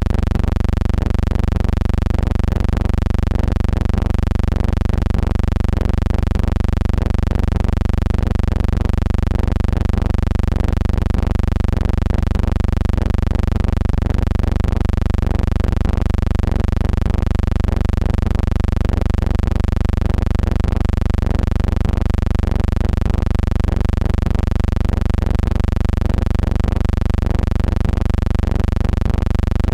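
Steady low hum with a stack of overtones, unchanging in pitch and level, with a slight regular pulse in loudness.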